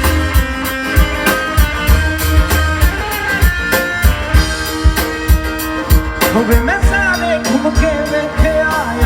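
Live band playing an instrumental passage: a steady drum beat under guitar and other pitched instruments, with a sliding melodic lead line coming in about six seconds in.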